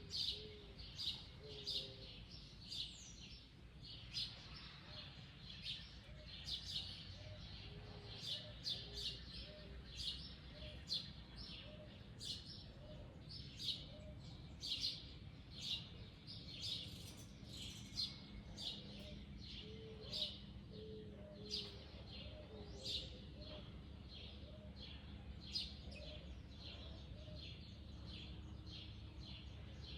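Wild birds chirping in a mango tree: short, sharp high chirps repeated about once or twice a second, with softer, lower calls in between over a steady low rumble of background noise.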